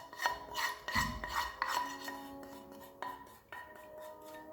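A run of light glassy clinks and chime-like rings, each tone hanging on after it is struck, with a soft low thump about a second in, settling into held ringing tones in the second half.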